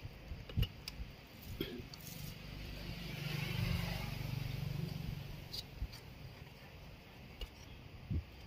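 Scattered light clicks and taps as the plastic casing and circuit board of an opened set-top box are handled, with a vehicle passing in the background, swelling and fading in the middle.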